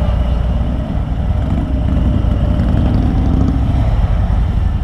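Harley-Davidson Road Glide's V-twin engine running at low speed while the bike rolls along. It is a steady low rumble that swells a little in the middle.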